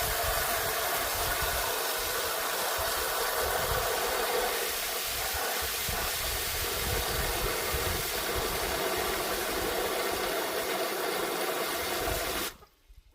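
Water running steadily into a chicken waterer as it fills, the pitch of the filling shifting partway through. The flow cuts off suddenly near the end as the waterer is full.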